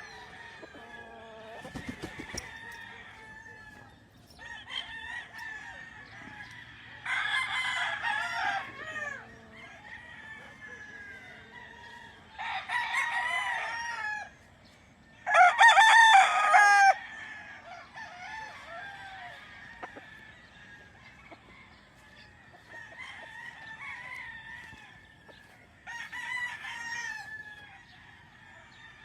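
Roosters crowing in turn: four loud crows, the loudest a little past the middle, with softer crows and hens clucking between them. A brief clatter sounds about two seconds in.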